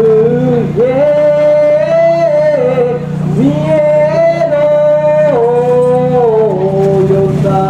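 A man singing an ondo-age festival chant solo: long held, wavering notes that slide up and down between pitches, over a steady low hum.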